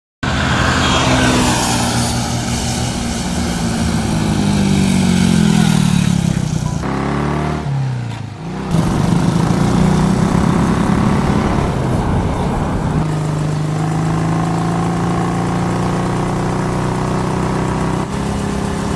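Small commuter motorcycle engine running along the road, its pitch falling over the first few seconds as it passes, dipping briefly about eight seconds in, then running steadily.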